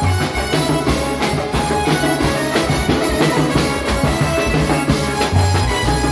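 Vietnamese nhạc lễ ceremonial music played live: a kit of steel-shelled drums and a cymbal struck busily over a melody and deep bass notes.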